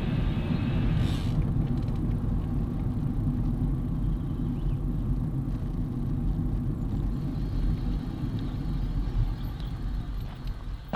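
Steady low rumble of a mountain bike riding an off-road track, with a fainter higher whine that fades out about a second in. The rumble eases near the end.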